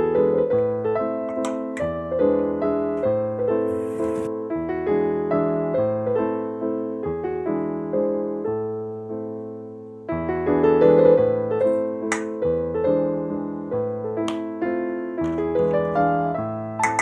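Background piano music: a gentle melody of struck notes, with the phrase starting over about ten seconds in.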